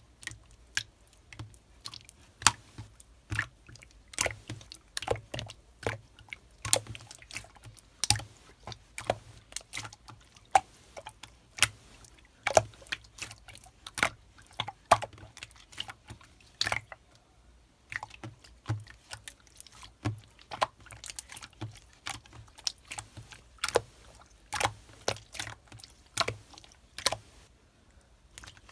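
Colourless clear slime being squeezed and pressed by hand, giving irregular sharp wet pops and clicks, about two or three a second.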